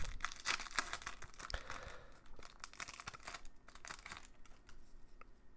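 Foil trading-card pack wrapper being torn open and crinkled by hand: a run of quick, dry crackles, thickest in the first few seconds and thinning out toward the end.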